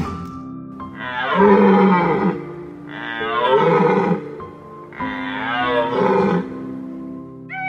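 A red deer stag roaring three times, each roar long and drawn out, over steady background music.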